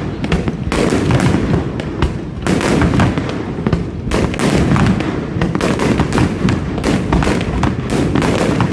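Fireworks display going off in a dense barrage: rapid bangs and crackling over continuous low booming, many bursts a second with no pause.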